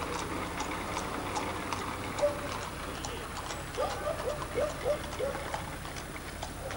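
Hooves of several trotting horses clip-clopping on a paved road, over the steady low hum of the vehicle that is following them. About four seconds in comes a quick run of five or six short high calls.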